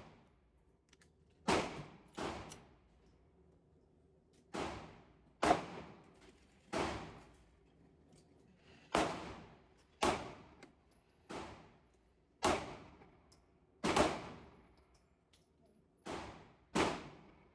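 A SIG P226 pistol firing about a dozen aimed shots at an uneven pace, roughly one to two seconds apart, each sharp report followed by an echoing tail.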